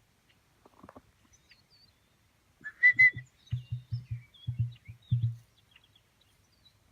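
An emu's low drumming call: a run of about seven deep, pulsing booms over roughly two seconds. Just before it comes a short, loud two-note whistle, and faint small-bird chirps sound throughout.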